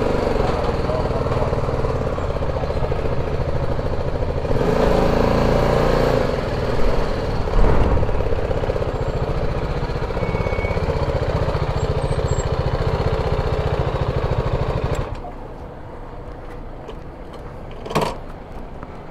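BMW G310 GS's single-cylinder engine idling steadily, briefly louder around five seconds in, then switched off about fifteen seconds in. A single click near the end.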